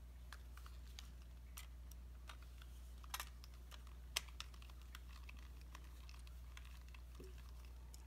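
Faint small clicks and taps of a screwdriver and screws working on a hard drive's metal mounting bracket, scattered through, with two sharper clicks near the middle, over a steady low hum.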